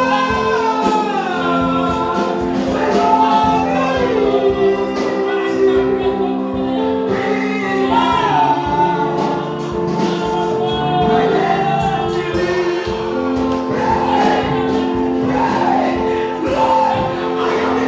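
Gospel choir singing with keyboard accompaniment and a steady beat.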